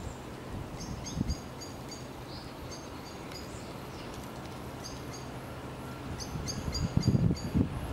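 Class 66 diesel locomotive's two-stroke V12 engine droning steadily as the heavy freight train approaches, growing louder near the end. A bird chirps repeatedly over it, and wind buffets the microphone a few times.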